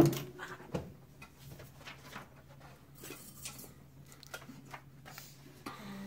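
Sketch pages being handled and clipped up onto a board: a sharp knock at the start, then scattered small clicks and paper rustles over a steady low room hum.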